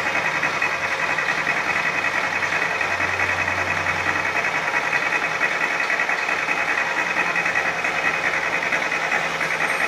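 Mazda 818's engine running steadily just after starting, with a fast, even mechanical beat.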